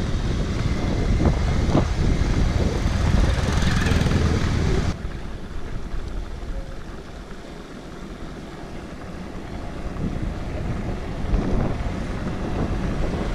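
Wind rushing over the microphone of a moving motorcycle, with the bike's engine and road noise underneath. The sound drops abruptly about five seconds in and stays quieter for a few seconds before building again.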